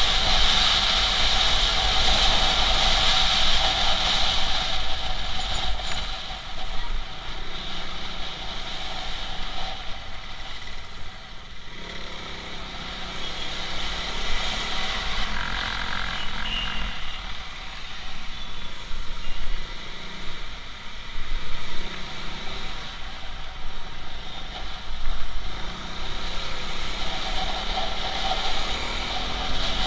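Motorcycle riding at road speed: engine running with steady wind rush on the microphone, the level rising and falling with the ride and dipping for a few seconds about a quarter of the way in.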